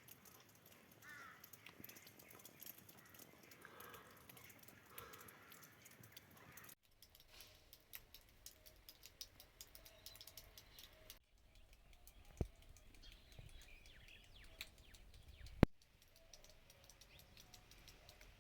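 Faint bird calls for the first several seconds, then faint scattered ticks and taps with two sharper clicks later on.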